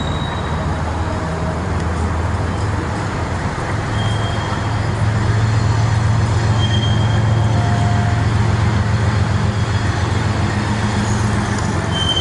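Steady low engine drone over a wash of road traffic, growing louder about five seconds in.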